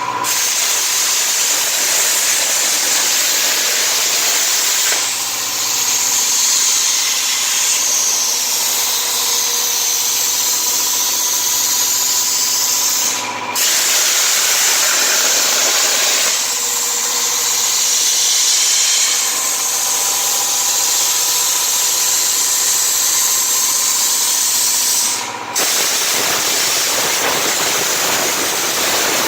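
CNC plasma cutter with a Hypertherm Powermax45 XP power source cutting: a loud, steady hiss of the plasma arc and air jet, with a faint steady tone beneath. The hiss cuts out for a moment twice, about 13 and 25 seconds in.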